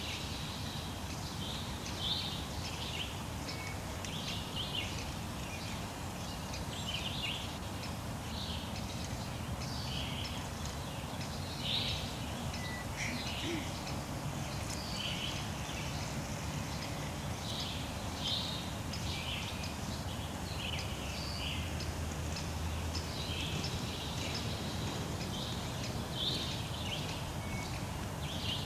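Small birds singing and calling, short high notes repeating every second or so, over a steady low rumble.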